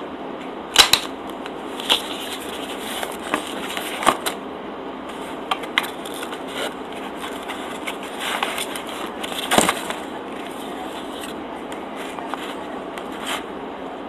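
Clear plastic clamshell sandwich container being handled and pried open: irregular plastic crackles and sharp snapping clicks, the loudest about a second in and again near ten seconds in, over a steady background hiss.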